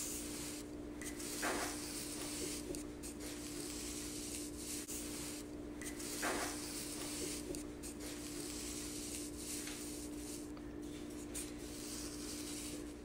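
Quiet room tone: a steady low hum over faint hiss, with two faint brief rubbing sounds, about a second and a half in and about six seconds in.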